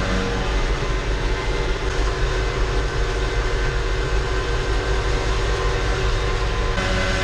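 A farm tractor's diesel engine running steadily with machinery whining over it; a higher whine comes in near the end.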